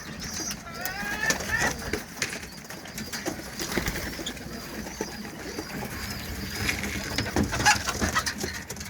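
Pigeons cooing and calling, with thin high chirps and scattered short clicks and taps.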